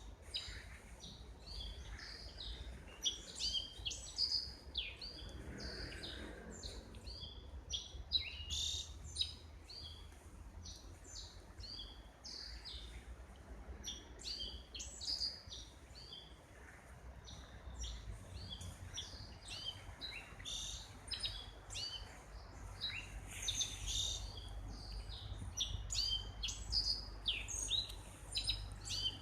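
Several small songbirds calling and singing, with many short chirps and quick trills overlapping throughout, over a steady low rumble.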